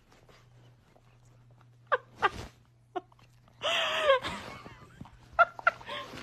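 A pet's short vocal cries: a few brief yelps, then one longer, louder call that rises and falls in pitch about halfway through, then two more quick cries near the end.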